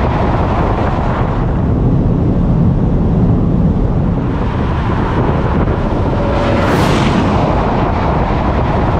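Steady loud wind buffeting and road rumble of a car at high Autobahn speed, heard on an onboard microphone, with a brief louder hissing rush about seven seconds in.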